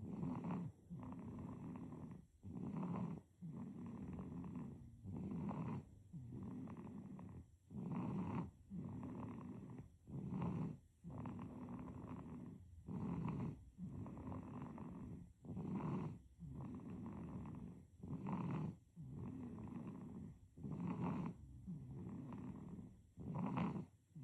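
Sleeping baby snoring, breath after breath in a steady rhythm of about one cycle every two and a half seconds, each ending in a louder short snore.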